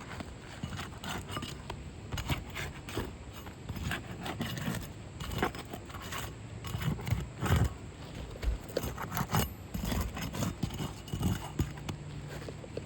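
Irregular scraping, clinking and knocking from hand work on a roof, with no steady rhythm and a few sharper knocks between about six and ten seconds in.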